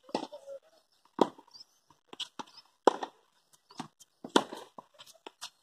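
Tennis racket striking the ball in a practice rally: three sharp hits about a second and a half apart, with fainter ticks in between.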